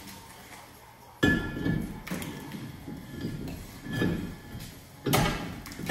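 A cross-drilled, slotted front brake rotor clanking onto the wheel hub and its studs: a loud metallic knock about a second in with a brief ring, then scraping and clinks as it is worked into place, and another knock near the end.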